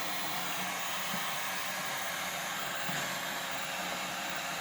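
Electric heat gun blowing steadily, a constant hiss of hot air warming the adhesive on camouflage wrap so it bonds to the fridge.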